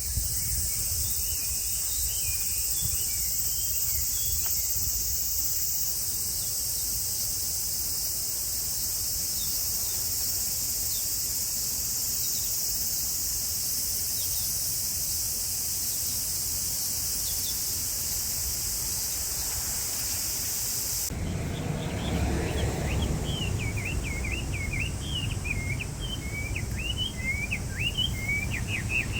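A steady, high-pitched insect chorus with a few faint bird chirps; about two-thirds of the way through it cuts off and a songbird sings a fast run of chirping notes over a low rumble.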